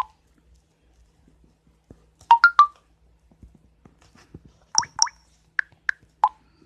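Short electronic blips and pops from a phone, each a brief tone at its own pitch. Three come in quick succession about two seconds in, then a pair, then three single ones spaced out near the end, like chat message and keypad tones.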